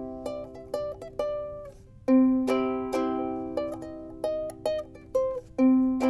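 Makala pineapple soprano ukulele being played. Quieter single plucked notes come first, then a full strummed chord rings out about two seconds in. Shorter notes and light strums follow, and another strong chord comes near the end.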